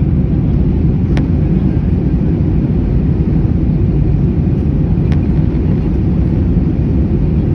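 Steady low rumble of an Airbus A321 in flight, engine and airflow noise, with a faint click about a second in and another about five seconds in.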